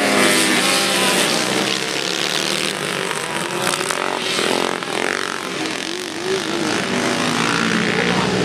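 Small engines of racing lawn tractors running hard, one passing close at first and then a pack going by, their pitch rising and falling as they accelerate and pass.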